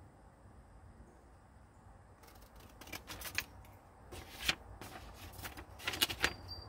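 Scissors cutting a sheet of paper, with the sheet rustling as it is handled: a few short crisp snips and crackles in the second half, after a quiet start.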